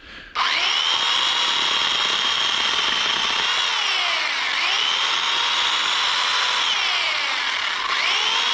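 Chainsaw starting up about half a second in and running with a steady whine. Its pitch sags and recovers twice as the chain is loaded in the wood during cutting.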